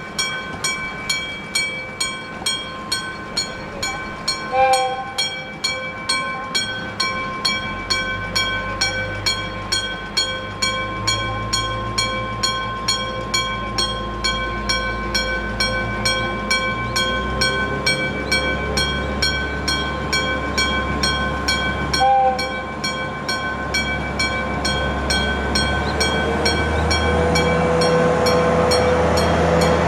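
Electromechanical gong-type (denshō-shiki) Japanese level-crossing bell striking steadily, about two strikes a second. A freight train's diesel locomotive engine drone comes in about eight seconds in, and the noise of the train grows louder toward the end.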